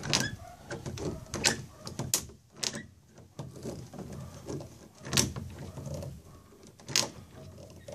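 Hand pop-rivet gun setting a rivet in a plastic kayak hull: about six sharp clicks, one with each squeeze of the handles, with a lower mechanical rattle of the tool between them.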